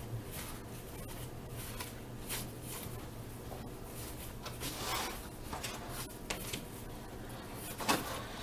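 Baseball cards from a freshly opened wax pack being slid and flipped through by hand: soft, scattered rustling and rubbing of card stock, over a faint steady low hum.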